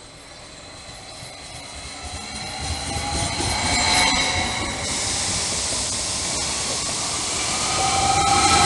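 SBB RABe 523 Stadler FLIRT electric multiple unit pulling into the platform and running close past, growing louder over the first few seconds and then holding steady. High whining tones rise out of the rumble about four seconds in and again near the end.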